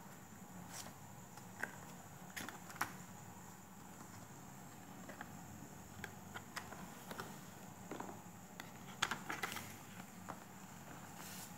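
Faint, scattered light clicks and taps of hands handling and opening a handmade surprise box, with a brief flurry of them about nine seconds in, over a steady low hum.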